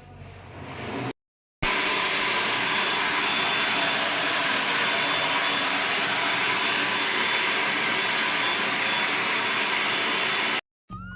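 Hair dryer blowing steadily, starting about a second and a half in after a short gap and cutting off just before the end.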